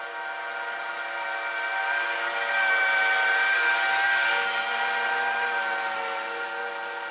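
Scag Tiger Cat zero-turn mower running while mowing, a steady engine note with a high whine. It grows louder as it passes close by, peaking about midway, then fades as it drives away.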